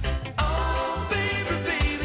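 Background music: a song with a sung vocal over a steady bass line.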